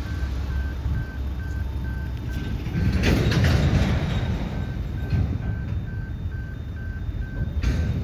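Empty sugar hopper wagons rolling past on the rails, a steady low rumble with a burst of louder wheel clatter about three seconds in. A high electronic beep repeats rapidly and evenly throughout.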